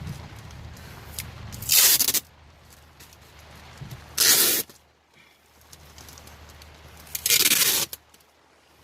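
Duct tape being pulled off the roll in three rips, each about half a second long, spaced two to three seconds apart.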